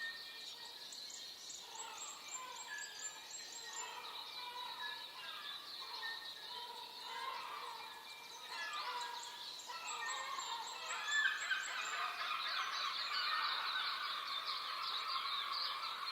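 Morning birdsong: several songbirds singing over one another in a dawn chorus. A fast run of high, rising notes comes twice, and the song grows fuller and louder in the second half.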